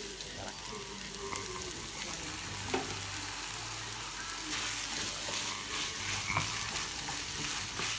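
Minced beef sauce sizzling in a frying pan, stirred and scraped with a wooden spatula. Under it a low electrical hum from the induction hob cuts in and out every second or so.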